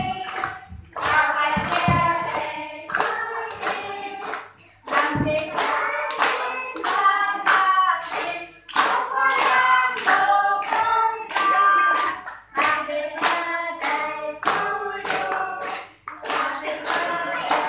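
A group of voices singing a song together, with hands clapping along in a steady rhythm.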